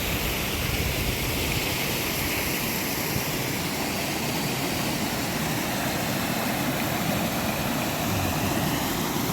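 Steady rushing of a fast mountain stream, an even roar of water with no breaks.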